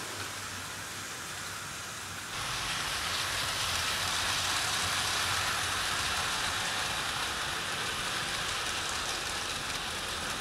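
00 gauge model train, a Hughes Crab 2-6-0 hauling a rake of vans, running along the track with a steady hissing rattle of small wheels on rail. It gets louder about two seconds in.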